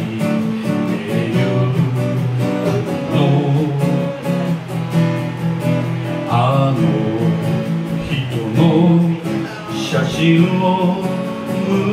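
A man singing a Japanese folk song while strumming an acoustic guitar.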